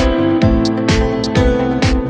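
Background music: a guitar-led track with a steady drum beat, about two beats a second.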